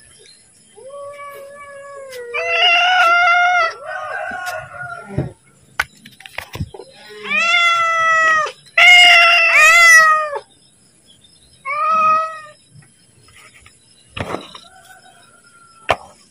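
Domestic cat meowing over and over, loud drawn-out calls of about a second each, asking to be fed. Two long meows about eight seconds in are the loudest, then one shorter call, and near the end a few light clicks.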